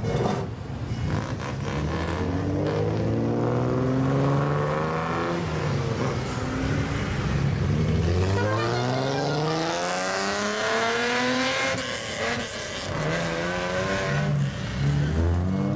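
Lowered older sedans with straight-piped exhausts revving as they pull away one after another. The engine pitch climbs and falls over and over, with one long rising rev near the middle and short throttle blips near the end.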